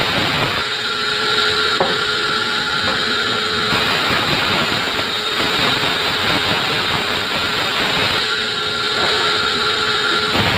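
Sawmill saw running and cutting through an acacia log, a loud continuous mechanical noise. Its tone changes twice as the cut goes on, with a single sharp click early in the first change.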